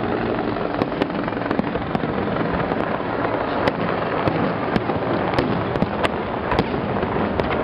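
Fireworks display: aerial shells bursting in a continuous rumble, with many sharp cracks at irregular intervals, several a second.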